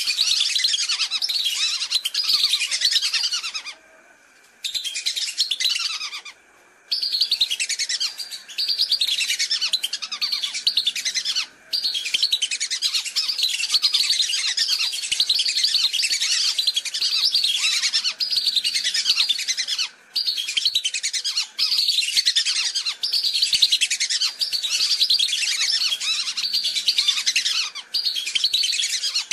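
A flock of whistling ducks (belibis) calling, played as a lure recording: a dense, continuous chorus of high-pitched whistled chirps. It cuts out briefly about four and six seconds in and dips for moments later on.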